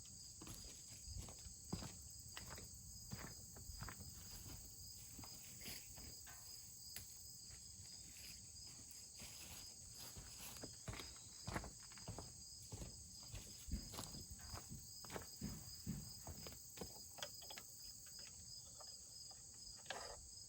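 Steady high insect chirping, with scattered small taps and scratches as mouse-nest debris is picked out of the engine shroud with a twig.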